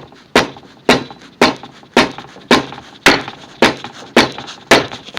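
Steady hammer blows, about two a second, driving a glue-coated wooden dowel into a drilled hole in an oak chair leg's support block.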